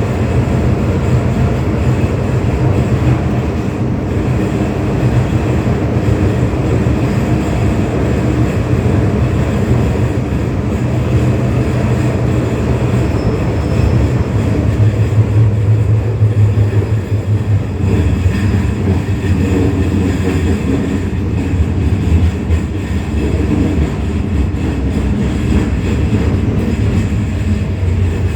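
Hong Kong MTR M-Train car A256 running, heard from its cab: a loud, steady, thunder-like low rumble with heavy shaking. The noise has become much worse than before and awaits repair.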